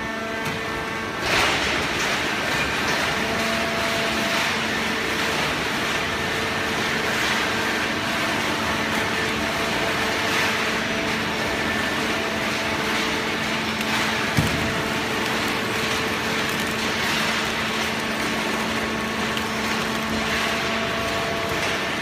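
Horizontal hydraulic cardboard baler running: a steady mechanical hum with several held tones over a noisy wash, and one sharp knock about two-thirds of the way through.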